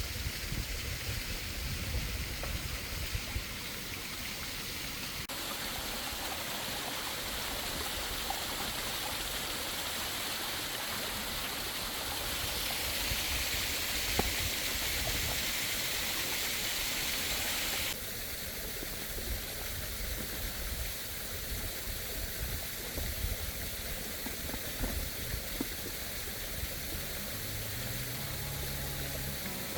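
Waterfall running with a steady rushing hiss, its tone changing abruptly about five seconds in and again around eighteen seconds.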